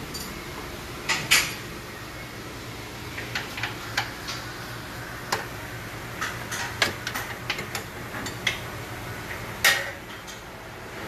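Scattered metallic clinks and taps of hand tools and metal parts during suspension work on a car on a lift, over a steady low hum; the sharpest clanks come about a second in and again near the end.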